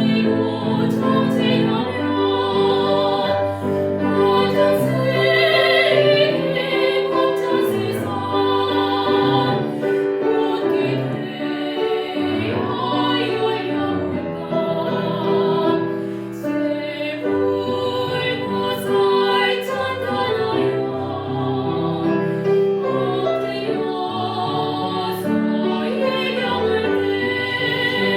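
A Korean Buddhist hymn (chanbulga) sung in a classical style with vibrato over piano accompaniment.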